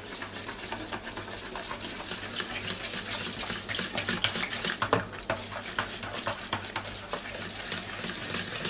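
Hand whisk beating a wet batter of eggs, milk and oil in a large bowl: quick, irregular sloshing strokes with light clicks of the whisk against the bowl, as flour is added a little at a time.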